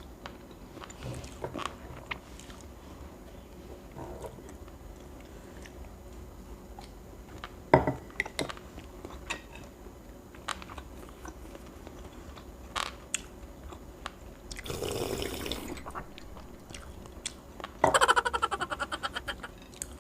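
Close-up eating sounds of a person chewing grilled street food, with scattered small clicks and taps and a sharp click about 8 s in. A brief rushing noise comes near 15 s, and a fast rattling run of ticks near the end.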